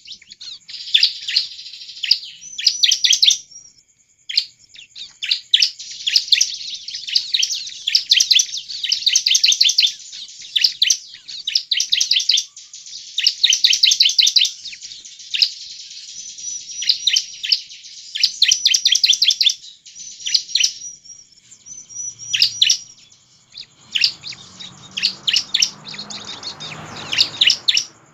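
Bar-winged prinia (ciblek) singing a lively song: bursts of rapid, sharp, high chirps run together in fast trills, broken by short pauses.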